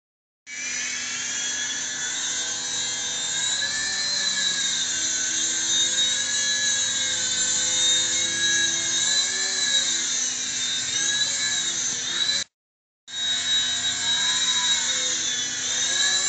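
Small indoor RC helicopter's electric motor and rotors whining in flight, the pitch wavering up and down as it hovers and manoeuvres. The sound drops out completely for about half a second near three-quarters of the way through.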